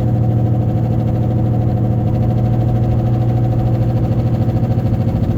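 Loud low drone inside a Toyota Camry cruising at about 60 mph, with a fast, even wobble in its loudness. It is the car's worsening noise and vibration, which the owner suspects is a wheel bearing.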